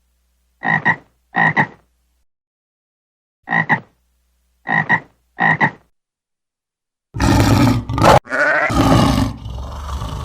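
Animal calls: five short croak-like calls, each a quick double pulse, spaced irregularly over the first six seconds. Then, about seven seconds in, a loud, rough, growling sound starts, breaks off briefly and carries on.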